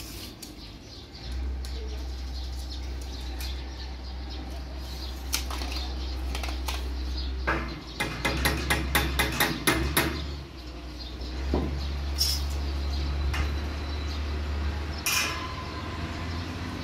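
Metal clinking and knocking, with a quick run of about ten sharp taps around the middle, over a steady low hum that starts about a second in.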